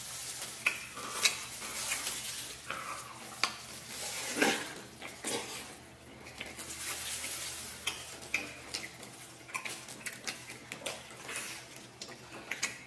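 Eating sounds from stewed beef ribs eaten by hand: wet chewing and smacking, with irregular small clicks and rustles.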